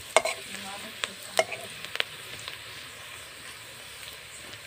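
Sliced onions sizzling in hot oil in a wok, with a spatula stirring and clacking against the pan a few times in the first two seconds, then a steady sizzle.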